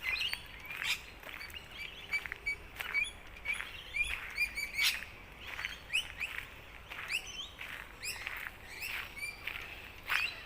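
Several small birds chirping and calling over one another, a busy run of quick, sweeping chirps and short whistles.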